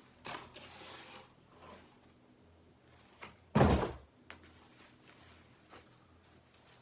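Unboxing handling noise: a rustle of packaging, then one loud thump about three and a half seconds in, with a few light knocks around it.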